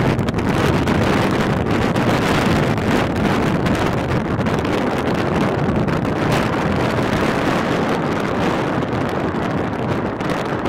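Strong wind buffeting the microphone: a loud, steady, rumbling noise with no letup.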